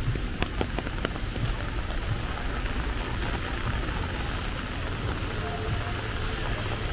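Steady rain falling, heard from under a small umbrella, with a few sharp drop taps in about the first second.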